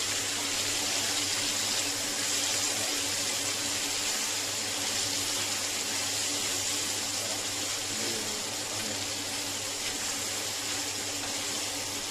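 Steady, even hiss with a low hum underneath, from a clay pot of oysters and spring onions cooking over a gas burner.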